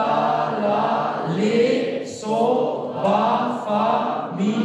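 A man singing down the chromatic scale in tonic sol-fa syllables, one held note after another.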